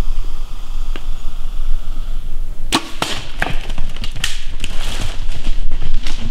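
A bow is shot just under three seconds in with one sharp, loud snap, followed by a couple of seconds of irregular crackling and snapping as the whitetail deer crashes off through the brush and leaves.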